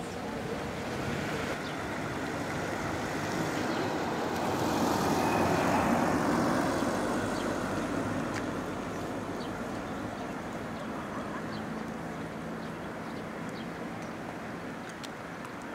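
A road vehicle passing by: its noise swells to a peak about six seconds in, then fades away.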